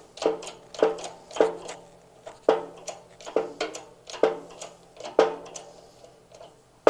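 Shop press worked in repeated strokes, a sharp metallic click with a brief ring each time, about seven strokes that start about half a second apart and slow to about one a second. The press is driving a new sprocket-shaft bearing race into the aluminium crankcase half of a Harley-Davidson Ironhead Sportster, using the old bearing as the driver.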